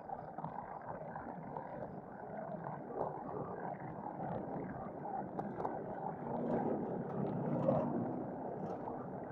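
Steady muffled rush of wind and road noise while riding a bicycle.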